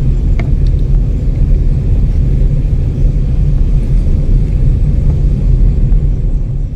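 Loud, steady low rumble of a vehicle moving along a paved road, with a couple of faint clicks about half a second in.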